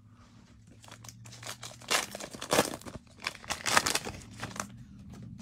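Crinkling and rustling of thin plastic as trading cards are handled, in irregular bursts that are busiest in the second half.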